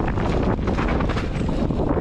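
Wind buffeting the microphone on a mountain bike descending an enduro trail, with a steady low rumble and frequent knocks and rattles from the bike running over rough ground.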